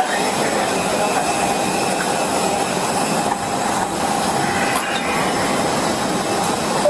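Steady loud rushing noise of an airliner's ventilation and auxiliary power, with a faint steady whine running under it.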